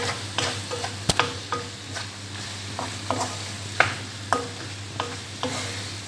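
Chicken gizzards sizzling in a nonstick wok while a wooden spatula stirs them, scraping and tapping against the pan every half second or so, with one sharp knock about a second in.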